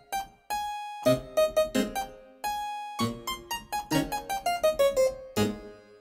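Background music: a keyboard tune of short, separate notes, with brief breaks about half a second in and again around two and a half seconds in.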